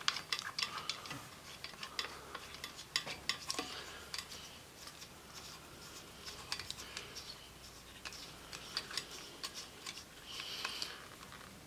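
Light metal clicks and scrapes as a sheet-metal edge guide is fitted onto a trim router's base and its clamping screw is turned tight. The clicks come irregularly, with a short scrape near the end.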